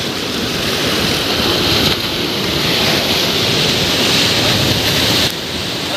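Sea surf washing and breaking over rocks and onto the sand, a steady loud rush of water, dipping slightly near the end.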